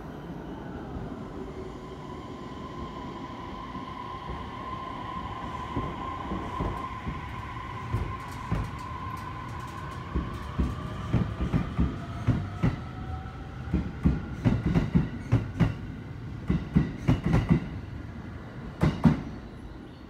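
Electric train moving along the platform: a steady electric whine, then from about eight seconds in its wheels clack over rail joints in quick groups, getting louder, with the loudest clacks near the end.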